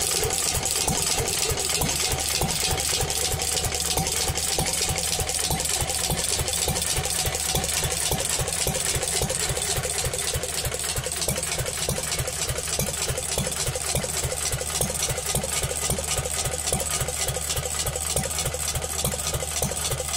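Horizontal Pilter stationary engine running steadily at idle, with an even, regular beat.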